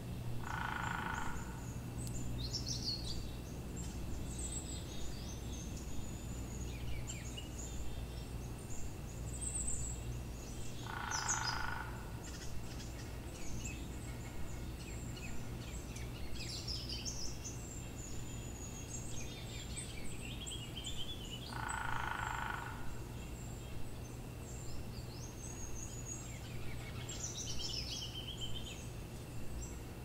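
Wild birds calling: scattered high chirps and trills from small birds, with a harsher, lower call about a second long repeated three times, roughly ten seconds apart. A steady low hum runs underneath.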